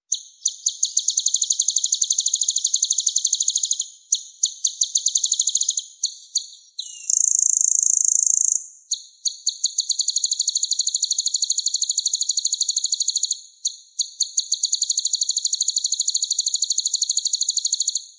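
Konin (kolibri ninja) songbird singing a very high, fast rolling trill in runs of a few seconds separated by short pauses. It breaks once, about seven seconds in, into a buzzy held note lasting about a second and a half.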